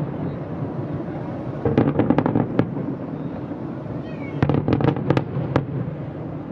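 Salvos of aerial firework shells bursting: two volleys of rapid bangs, about two seconds in and again about four and a half seconds in, over a steady low rumble.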